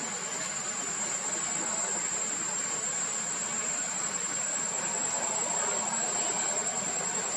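Steady high-pitched insect drone, unbroken, over a constant background hiss.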